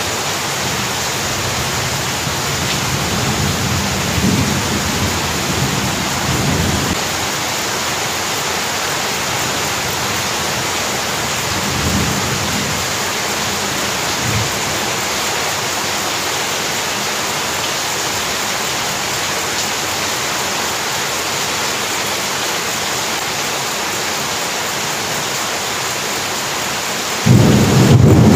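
Very heavy rain pouring steadily onto the ground, pots and plants, with a few low rumbles. A much louder rumble starts about a second before the end.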